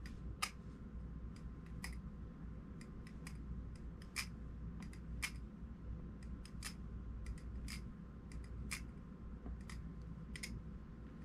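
Titanium HOM Basilisk balisong (butterfly knife) being flipped: sharp metallic clicks and clacks of the handles and latch coming together, irregular, about one or two a second.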